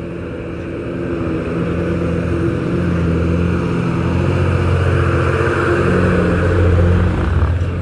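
Engine of a bus running close by as it squeezes past on a narrow road. It grows louder over the first few seconds and drops off near the end.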